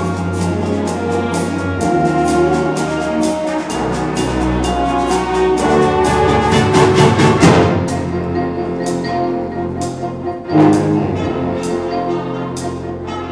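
Wind ensemble playing a fanfare: held brass and woodwind chords over a steady run of percussion strikes. The band swells to a loud climax about seven seconds in, hits a sharp accent a few seconds later, and then the strikes slow to about two a second under the chords.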